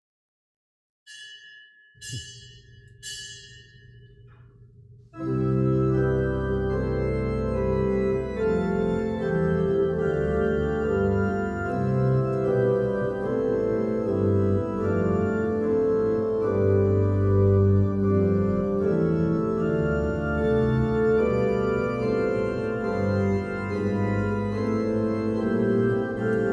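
Three ringing strikes of a small bell, about a second apart, then organ music begins about five seconds in and plays steadily with held chords: the opening of the pre-recorded entrance hymn.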